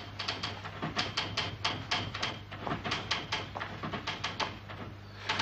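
Typewriter being typed on fast: a rapid, uneven clatter of key strikes, about five a second, over a steady low hum.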